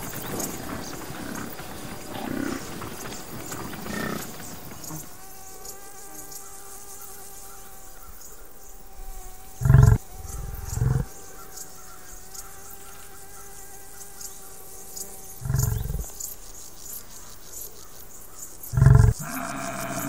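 Water buffalo giving short, low grunts, four in all from about halfway through, each about half a second long and the loudest sounds here. Beneath them runs a steady droning hum that sets in about a quarter of the way through.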